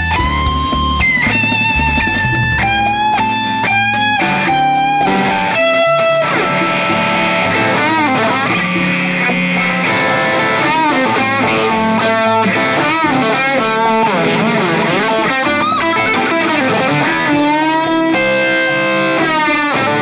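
Vox Bobcat V90 semi-hollow electric guitar playing a distorted lead tone through a Soldano X88R-style preamp and amp simulation: held notes with vibrato, then quicker runs and bends. A backing track with a steady drum beat plays underneath.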